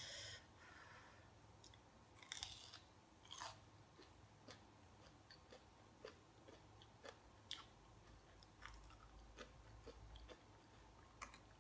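Quiet close-up chewing of a fried, cheese-filled Doritos Loaded bite: a couple of crunches about two and three and a half seconds in, then small, soft mouth clicks as the chewing goes on.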